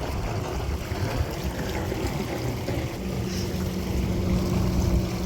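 Wind and water rumble on an open boat, joined about three seconds in by a steady motorboat engine hum.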